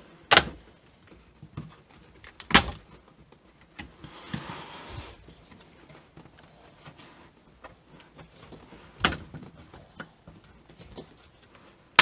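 Plastic bottom panel of a Dell G3 3579 laptop being pried off by hand, its snap clips letting go with sharp clicks, three loud ones spread apart, and a brief scraping rub about four seconds in.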